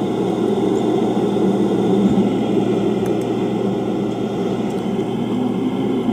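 A deep, steady rushing roar from the night sky, likened to strong wind blowing through a forest. Its source is unexplained, and it is not local wind, since the trees are barely moving.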